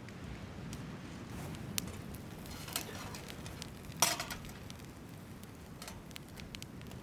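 A few scattered light clicks and clinks, the loudest about four seconds in, over a steady low rumble.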